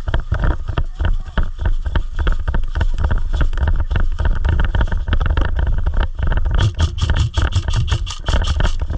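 Heavy rumble and knocking from a camera worn by a moving airsoft player. For the last two or three seconds a quick, even run of sharp clicks comes at about six a second.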